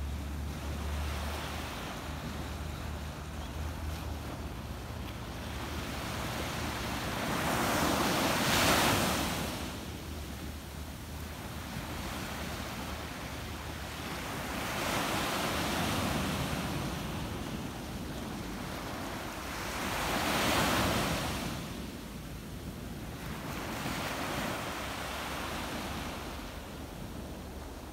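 Small ocean waves breaking and washing up a sand beach, the surf swelling and fading every few seconds, loudest three times as bigger waves come in.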